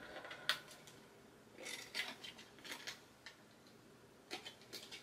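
Thin card being folded and creased by hand: faint, scattered crackles and taps in a few short clusters.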